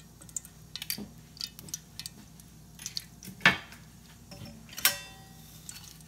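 Kitchen clatter of dishes and utensils: scattered light clicks and two louder knocks, the second, about five seconds in, ringing briefly.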